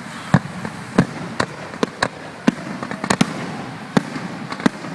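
Fireworks display: a quick, irregular run of sharp bangs, about ten in five seconds, over a steady background of noise.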